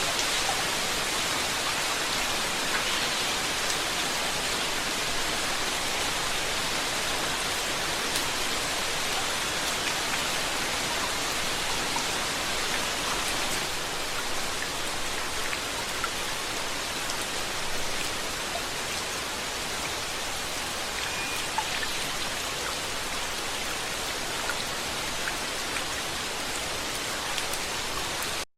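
Steady rainfall, an even hiss with scattered faint drop ticks, cutting off abruptly at the end.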